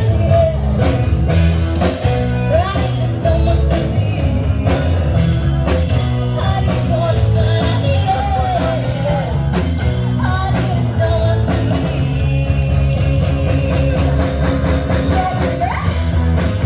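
Rock music with a sung vocal line over steady bass and guitar.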